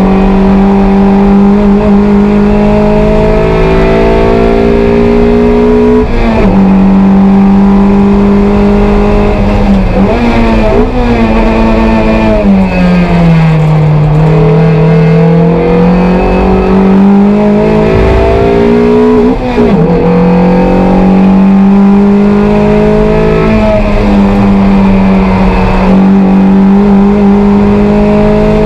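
Toyota MR2 race car's engine heard from inside the cabin, pulling hard through the gears. Its pitch climbs and drops sharply at each upshift. About halfway through the pitch falls away as the car slows for a corner, then climbs again through the following gears.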